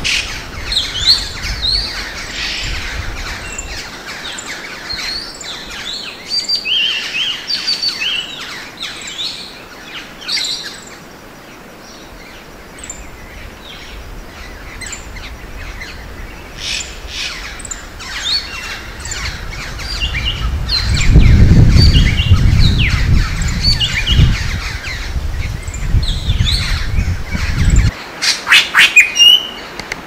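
Forest birds calling: many short chirps and whistles overlapping. A low rumble comes in about two-thirds of the way through, is the loudest thing heard, and stops abruptly near the end.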